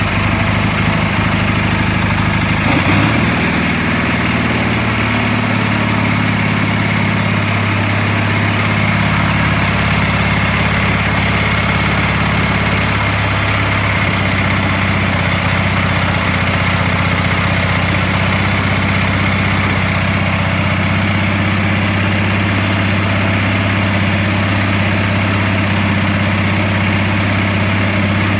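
Small air-cooled engine of a garden tractor running steadily at idle, heard up close in the engine bay, with a slight change in its note about three seconds in.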